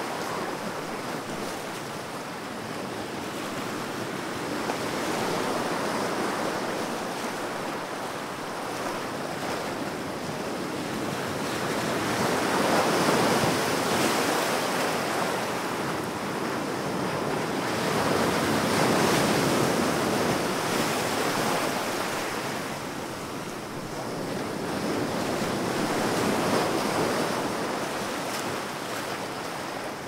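Baltic Sea surf: waves washing in and drawing back in a steady rushing hiss that swells about every six or seven seconds, four times.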